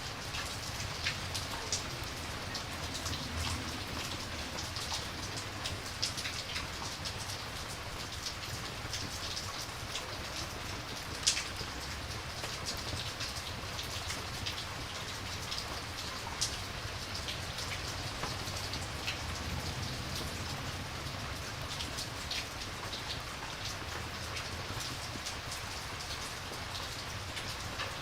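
Steady rain with a campfire crackling, scattered sharp pops over the even hiss; one pop about eleven seconds in is louder than the rest.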